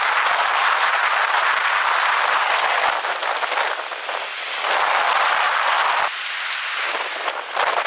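A loud, steady hissing rush from an arriving monsoon storm, with wind and rain noise, dropping off suddenly about three seconds in and again about six seconds in.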